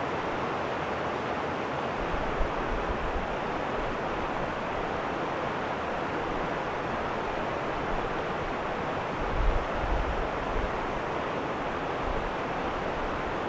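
Stream water rushing steadily over a small rocky cascade. Brief low buffets of wind on the microphone come about two and a half seconds in and again around nine to ten seconds in.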